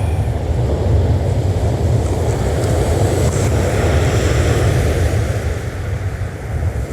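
Wind buffeting the microphone, a steady low rumble, over the even wash of surf.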